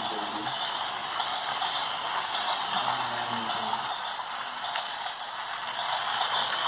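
Motorised toy steam locomotive running along plastic track, its small motor and wheels making a steady mechanical running noise.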